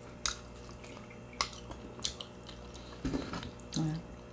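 Close-up mukbang eating sounds: a few sharp wet clicks and smacks about a second apart, from mouth and utensils over a meal with soup, and a brief low hum near the end.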